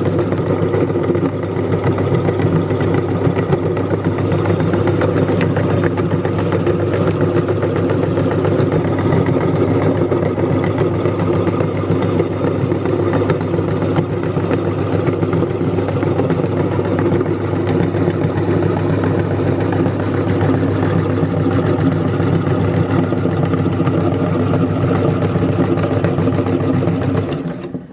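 Electric meat grinder's motor running with a steady hum, then switched off and stopping abruptly near the end.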